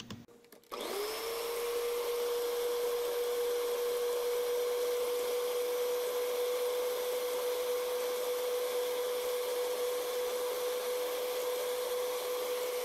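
Electric hand mixer switched on about a second in, its motor quickly spinning up to a steady whine, the beaters running through whipped egg whites in a bowl as egg yolks are beaten in.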